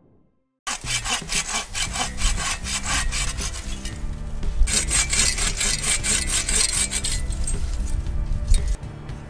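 Folding hand saw cutting through a wooden pole with quick back-and-forth strokes, about three to four a second, starting just after a moment of silence and stopping shortly before the end.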